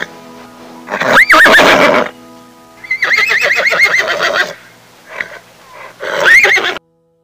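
A horse neighing: three loud whinnies about two seconds apart, with a wavering pitch. The sound cuts off suddenly near the end.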